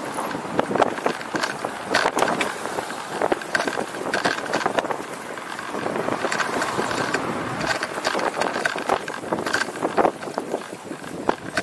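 A bicycle rattling and knocking as it rides over uneven city pavement: irregular sharp knocks over a steady rushing noise.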